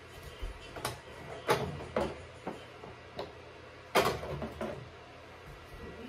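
Condiment bottles being set down and shifted on refrigerator door shelves: a run of separate plastic and glass knocks and clatters, the loudest about four seconds in.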